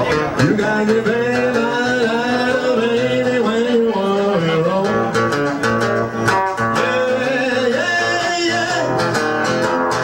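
Live blues band music: an acoustic guitar strummed over a steady beat, with a sustained, wavering lead melody above it and no words sung.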